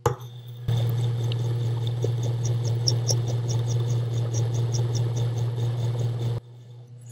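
GRS Power Hone's 1200-grit wheel grinding the face of a square (90 degree) engraving graver held in an angle fixture: a steady grinding hum with fast regular ticks, about five a second. The grinding stops suddenly near the end, and the hone's motor hum carries on faintly.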